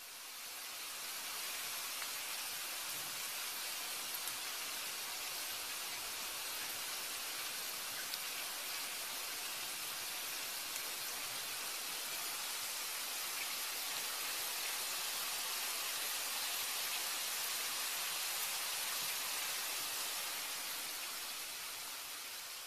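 Potato sticks shallow-frying in oil in a nonstick pan: a steady sizzle with a few faint crackles. It fades in at the start and tapers off near the end.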